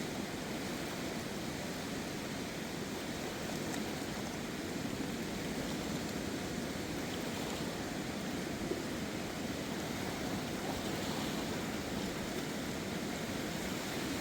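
Steady rushing of a river running high in flood.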